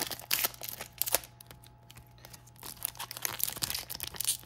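Metallic foil trading-card pack wrapper being torn open and crinkled by hand: quick runs of sharp crackles, quieter for a moment in the middle.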